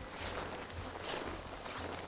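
Footsteps of people walking through grass and brush, about two steps a second, with clothing and gear rustling.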